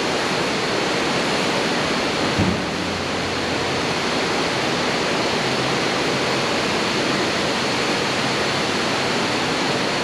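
Steady rushing noise of Fukuroda Falls, a large waterfall, with a brief low thump about two and a half seconds in.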